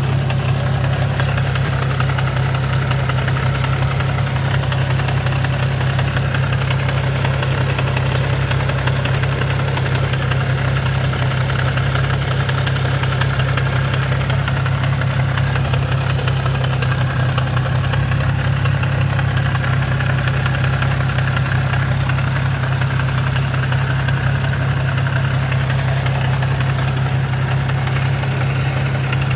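Infiniti G35 coupe's 3.5-litre V6 idling steadily with a knocking sound that the owner places in the six-speed manual transmission, heard when it is out of gear.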